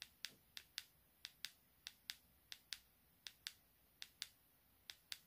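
Keypad of a Baofeng UV-5R handheld radio clicking as its arrow key is pressed over and over to step through the CTCSS tone list. The clicks are faint and sharp and come in close pairs, about one pair every two-thirds of a second.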